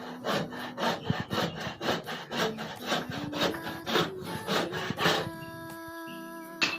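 Hand saw cutting through a wooden block for a bench leg, back-and-forth strokes about two a second, stopping about five seconds in.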